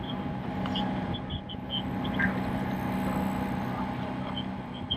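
Engine of a motor launch running steadily at cruising speed, a constant low hum over the rush of water and wind.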